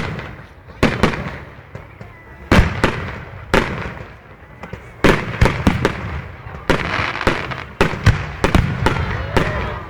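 Fireworks display: aerial shells bursting with sharp booms, at first a second or more apart, then from about halfway many in quick succession with crackling between them.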